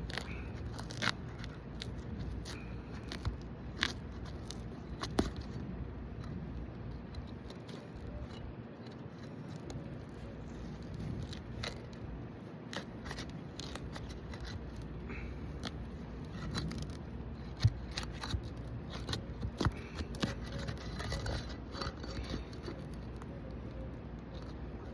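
Asphalt roof shingles being pried and pulled loose: irregular scraping and crackling with scattered sharp clicks, the loudest about two-thirds of the way in, over a steady low rumble.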